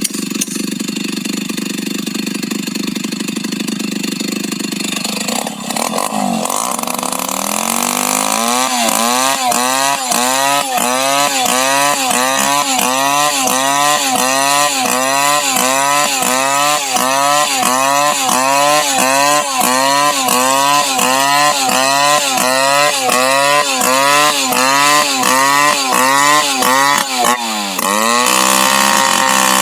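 Two-stroke chainsaw engine running steadily at first. About a third of the way in, its speed starts rising and falling in a quick, regular rhythm, roughly twice a second, with one deeper dip near the end.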